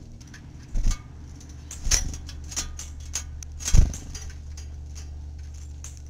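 A few sharp knocks and clicks, the loudest about a second in and just before four seconds in, over a steady low hum.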